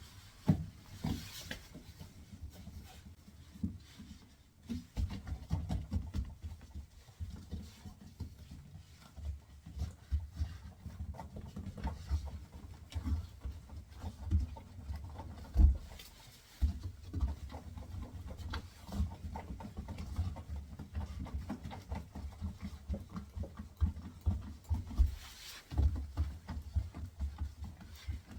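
Irregular knocks, rubbing and clicks of hands working a rubber door boot gasket into place on a front-load washer.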